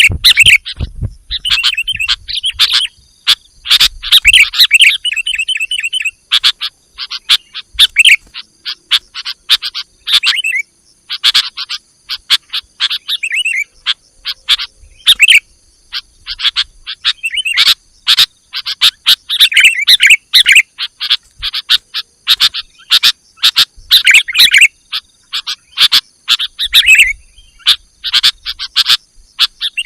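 Sooty-headed bulbul calls repeated over and over: loud, rapid chattering phrases made of sharp clicky notes with short gaps between them. This is a call recording used to lure wild bulbuls.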